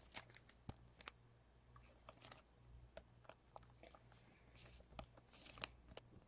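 Faint, scattered crinkling and clicking of trading cards and foil pack wrappers being handled, with two short rustles about two seconds in and near the end.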